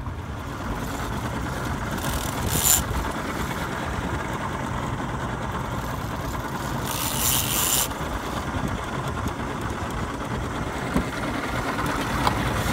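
Outboard motor idling steadily, a low rumble under wind and water noise, with two brief hissing bursts about two and seven seconds in.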